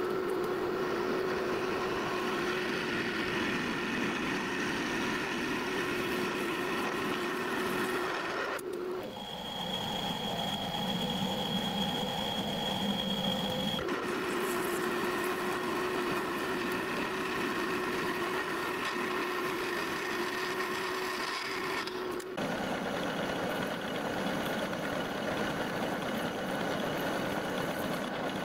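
Metal lathe running with a steady whine while drilling and turning a steel buffer housing. The tone changes abruptly three times, and a higher whistle sounds for a few seconds in the middle.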